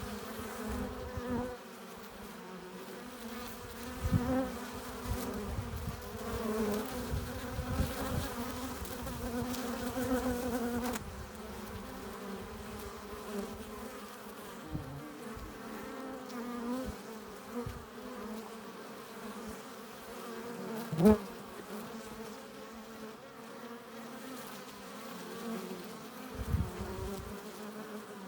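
Honeybees buzzing at the hive entrance: a steady, many-bee hum, with a few bees passing close, the loudest about two-thirds of the way through.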